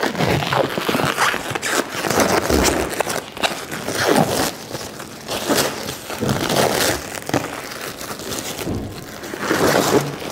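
Crinkly protective wrapping being peeled off a new car's roof and crumpled up by hand: irregular crinkling and rustling.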